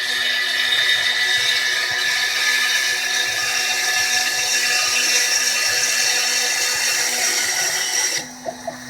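Small CNC mill's spindle running with the bit cutting MDF, a steady high whine with hiss. About eight seconds in, the cutting noise drops away, leaving a quieter hum and a few ticks.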